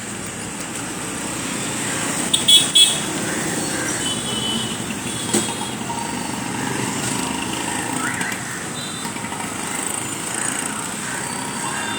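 Steady background traffic noise with short vehicle horn toots, the loudest about two and a half seconds in.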